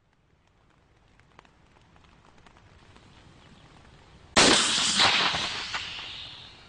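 Shoulder-fired surface-to-air missile (MANPADS) launching: a sudden loud blast about four seconds in, then a rushing hiss from the rocket motor that fades over about two seconds as the missile flies off.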